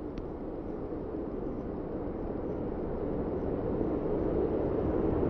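Steady rushing noise with no distinct pitch, growing gradually louder.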